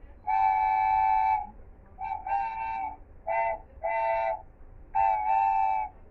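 A multi-note chime train whistle sounding a steady chord in six blasts: a long one, then four shorter ones, then another long one near the end.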